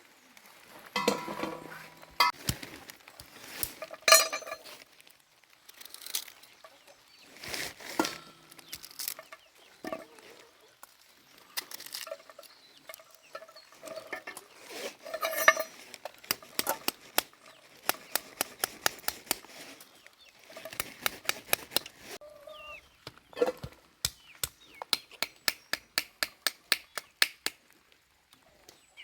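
Kitchen utensils clinking and knocking against dishes and pots during food preparation, in irregular clusters, then a run of quick even taps, about four or five a second, near the end.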